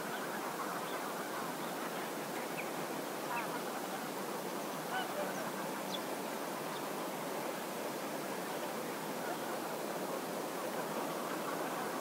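Steady outdoor rushing noise with a few faint, short, far-off bird calls in the first half.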